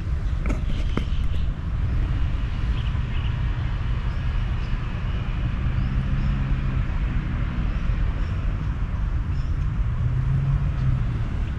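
Steady outdoor ambience: a continuous low rumble with a hum that swells twice, over an even hiss, with a few faint clicks in the first second.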